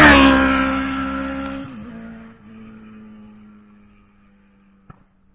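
Motorcycle riding past at speed: its engine note drops in pitch as it goes by, then fades away over a few seconds.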